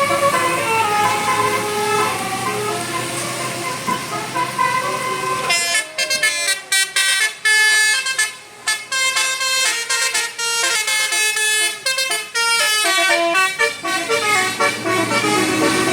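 A bus's multi-trumpet 'telolet basuri' musical horn playing a melody of quick, separate notes. About five seconds in, the notes turn cleaner and choppier, with short breaks between phrases.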